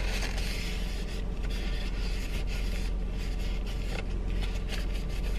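Paper napkin rubbing and scraping over a disposable coffee cup's lid, wiping away spilled coffee, in short faint strokes over a steady low hum.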